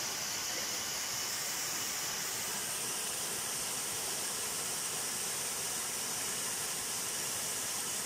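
Small waterfall splashing over rocks into a shallow pool: a steady, even rush of falling water.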